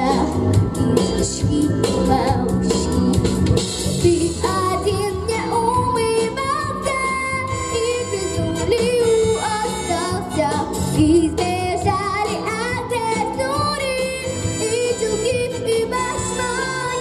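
A young girl singing through a handheld microphone over backing music.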